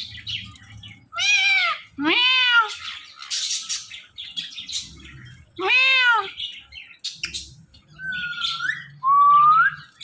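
Indian ringneck parrot mimicking a cat's meow three times, with scratchy chatter in between and two short rising whistles near the end.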